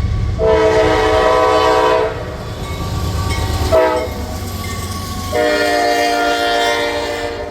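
Locomotive air horn sounding a chord of several notes in three blasts: long, short, then long. Underneath is the low rumble of the moving train.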